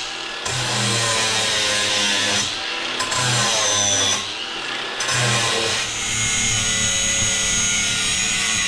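Angle grinder with a cutting disc cutting off metal protrusions, throwing sparks. The motor runs at a steady high whine that wavers and dips a few times as the disc bites into the steel.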